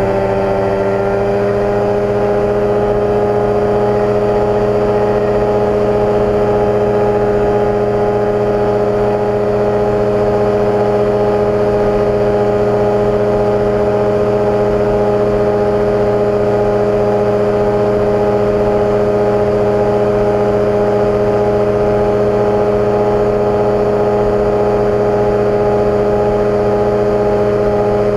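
65 hp Rotax 582 two-stroke twin of a FoxTug microlight trike, driving its pusher propeller at climb power. It runs loud and steady; its pitch eases slightly about a second in, then holds.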